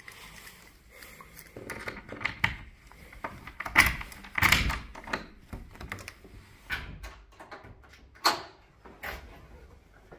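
A door being unlocked with a key and opened: a run of clicks and rattles from the cylinder lock and handle, with a few louder knocks along the way.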